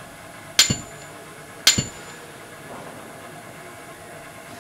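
Two sharp metallic hits about a second apart, each with a brief high ring, over a steady background drone: impact sound effects on an animated title.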